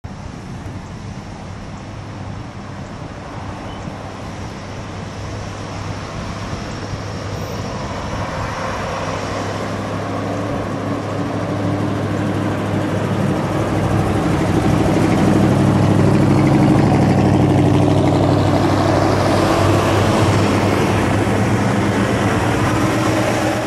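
1970 Plymouth Superbirds' 440 cubic-inch V8 engines running as the cars drive up and pass by, growing steadily louder as they approach and easing off slightly near the end.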